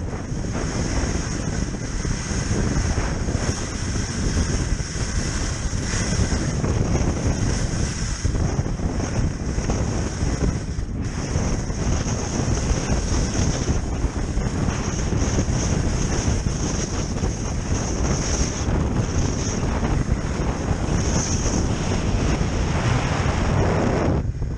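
Wind buffeting an action camera's microphone: a dense, steady rumble with a high hiss over it. The hiss fades just before the end.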